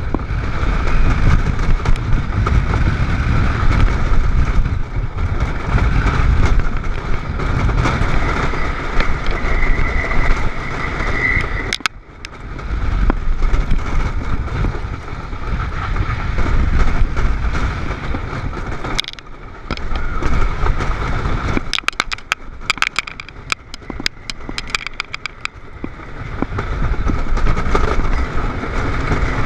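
Wooden roller coaster train running at speed along its wooden track, a loud continuous rumble and rattle of the wheels. It eases off briefly about twelve and nineteen seconds in, and there is a run of sharp clacks between about twenty-two and twenty-six seconds in.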